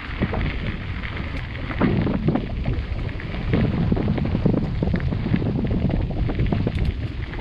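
Mountain bike riding fast down a rough dirt trail: wind buffeting the microphone and tyres rolling over the ground give a steady rumble. The bike rattles and knocks over bumps many times throughout.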